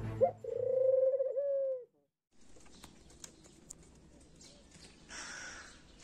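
A dove cooing once, a long call that dips twice and falls away at the end. After a short silent gap it gives way to faint outdoor background with a few small clicks.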